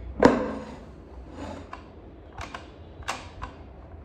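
Tefal pressure cooker being handled: one sharp metallic clunk with a brief ring about a quarter second in, then several lighter clicks of the lid and handle being worked.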